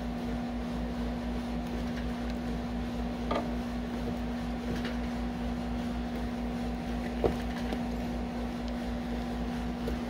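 Steady mechanical hum with one clear held tone, joined by a couple of faint clicks about three and seven seconds in.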